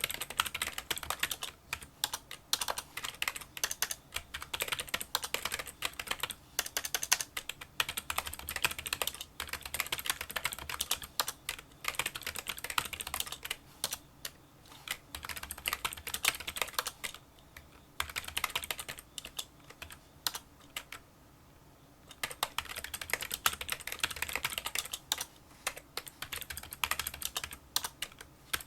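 Fast continuous typing on a Kinesis Freestyle Solo split keyboard with membrane key switches: a quick stream of light, small clicks, fairly quiet for a membrane keyboard. The typing breaks off for about a second and a half about three quarters of the way through, then resumes.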